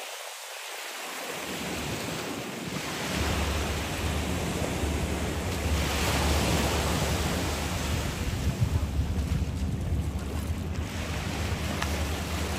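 Surf washing onto a beach, a steady rush that swells and eases, with wind buffeting the microphone as a low rumble from about three seconds in.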